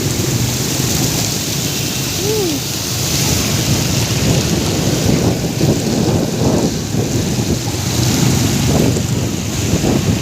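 Heavy rain falling, a steady rushing noise.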